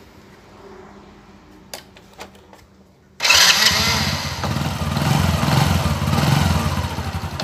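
Honda Wave Alpha's single-cylinder four-stroke engine idling quietly, then suddenly much louder from about three seconds in.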